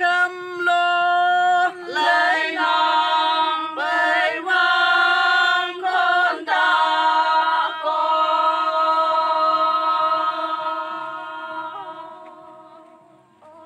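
A group of Konyak women singing a traditional song in unison with no instruments, holding long notes. The last note is held for about six seconds, fading away before it stops near the end.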